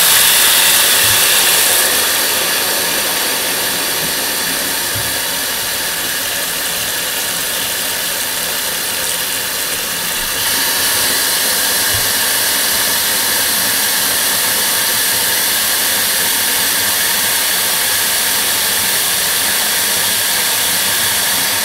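Water from a bathroom faucet running into a plugged sink as it fills: a steady rushing hiss that grows a little louder and brighter about halfway through.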